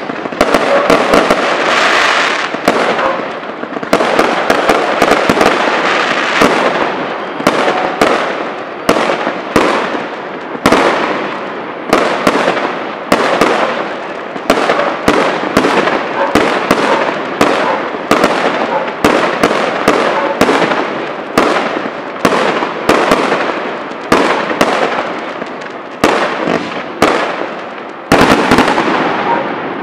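Fireworks display: aerial shells bursting in a rapid, continuous string of sharp bangs, about one to two a second, with crackling between the reports.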